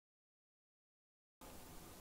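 Dead digital silence, then faint background hiss comes in near the end.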